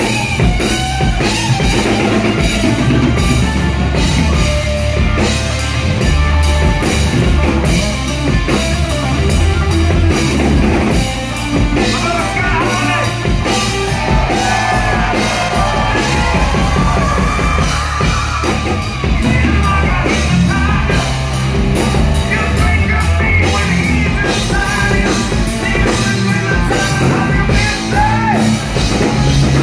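A live rock band plays at full volume: distorted electric guitar, bass and a drum kit. A male lead singer sings and shouts over the band, mostly in the second half.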